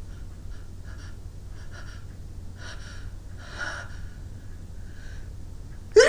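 A woman's short sniffs and gasping in-breaths as she works up to a sneeze, then the sudden loud onset of a sneeze at the very end.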